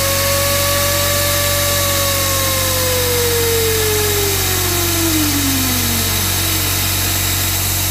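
Homemade radial-turbine turbojet engine running down: a steady whine holds, then from about two seconds in falls steadily in pitch over four seconds as the turbine spins down, under a loud steady rush of air.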